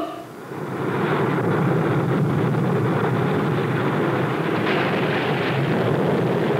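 Steady rushing roar of water and spray as a submarine's bow breaks the surface. It swells up about a second in and then holds even.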